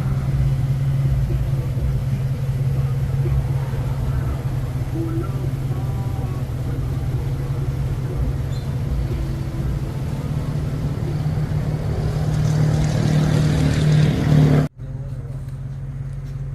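Vehicle engine and road noise from a moving car, a steady low hum over rumble that grows louder toward the end, then cuts off abruptly and carries on quieter.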